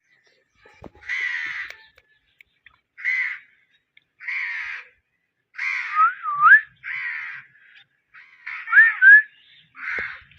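Indian ringneck parakeet giving a series of about seven harsh, raspy squawks, a second or so apart. Two of them run into short clear whistles that slide up and down in pitch.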